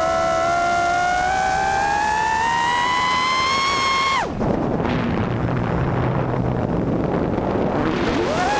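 Brushless motors and 5-inch props of a 4S racing quadcopter (EMAX RS2205 2600kv motors, GemFan 5x3 props) whining under held throttle. The pitch climbs steadily for about four seconds, then drops away abruptly as the throttle is chopped at the top of a power loop. A rushing wash of air and slowed props follows, and near the end the whine returns, rising fast as the throttle is punched again to pull out of the loop.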